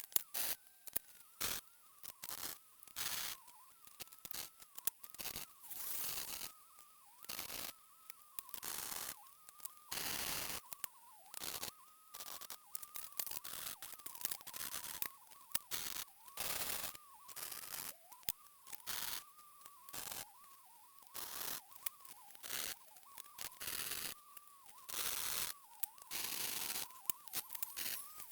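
MIG welder stitch-welding a steel patch panel into car bodywork: repeated short bursts of crackling arc hiss, each under a second or so, with short pauses between. A faint wavering whine runs underneath.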